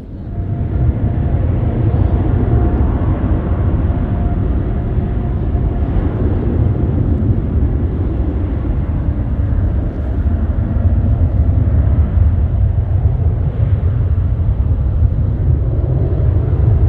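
Jet airliner passing close during a takeoff or landing: a loud, low engine rumble that rises sharply about half a second in and holds, with a faint whine in the first half.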